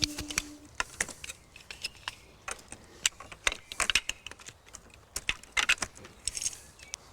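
Irregular light clicks and clinks, several in quick clusters, with a held guitar note dying away in the first half second.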